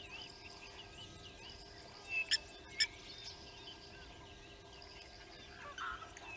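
Several small birds chirping and warbling, with two sharp metallic 'tink' calls about half a second apart near the middle, the anvil-like alarm call of a blacksmith lapwing.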